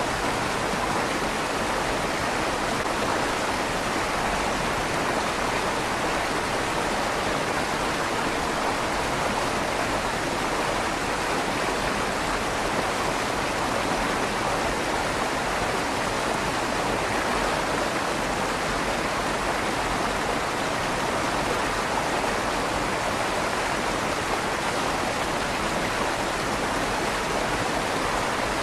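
River water flowing steadily through a stone tunnel under a bridge, an even rushing with a slight echo off the stone walls.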